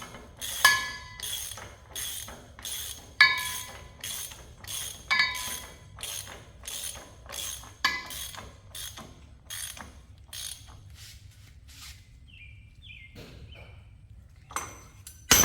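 Hand ratchet clicking steadily, about three clicks a second, as a truck wheel's lug nuts are run down, with a ringing metallic clank every few seconds. The clicking stops about eleven seconds in, and a loud knock comes right at the end.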